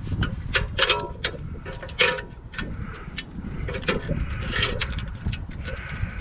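Metal tool clicking and scraping against the circlip of a suspension bush in a hub carrier as it is forced out, a run of irregular sharp clicks with the loudest clack about two seconds in.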